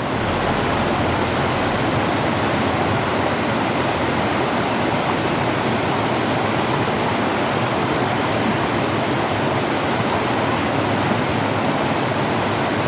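Creek water rushing steadily, an even continuous noise.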